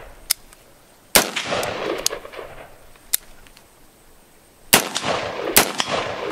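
Bushmaster SPR AR-15 rifle, fitted with a Sharps Rifle Co. Relia-Bolt, firing single semi-automatic shots. There are three loud shots, one about a second in and two close together near the end, each followed by a rolling echo, with fainter sharp cracks in between.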